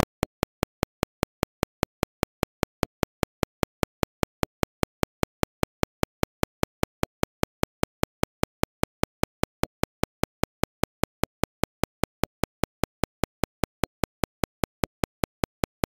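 A rapid, perfectly even train of sharp clicks, about five or six a second, with silence between them.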